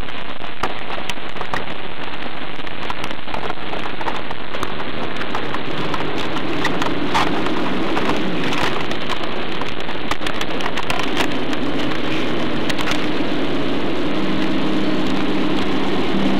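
Steady rain-like hiss scattered with crackles, opening the song's intro, with its highest sounds cut off at first. Low held musical notes fade in under it from about six seconds in and grow stronger toward the end.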